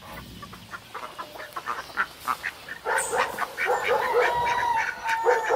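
Domestic fowl calling: a rapid flurry of short calls that grows louder and busier, joined by longer honk-like calls from about three seconds in.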